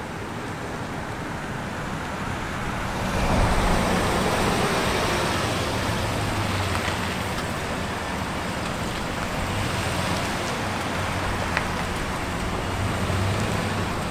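Police SUV driving slowly past at close range: its engine hums low and steady over tyre noise. The sound grows louder about three seconds in and then holds steady.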